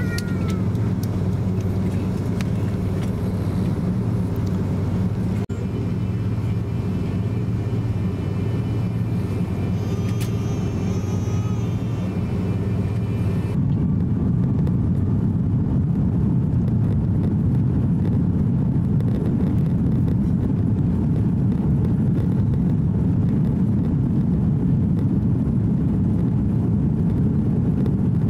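Cabin sound of an Airbus A330-300 with Rolls-Royce Trent 700 engines, heard from a window seat. The engines first run at low taxi power with a steady hum. About halfway through there is an abrupt change to the take-off roll, with the engines at take-off thrust giving a louder, denser, even rush.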